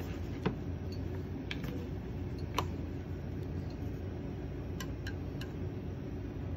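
Portable gas burner running steadily under a hot sandwich maker, with several sharp clicks of chopsticks tapping the metal pan as enoki strands are laid in.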